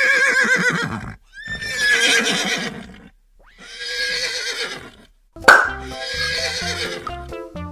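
Animal calls, four in a row with short gaps between them, each with a shaky, wavering pitch.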